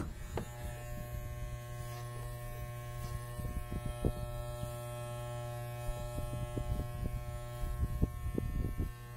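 Electric hair clippers running with a steady buzz while shaving a cat's matted coat.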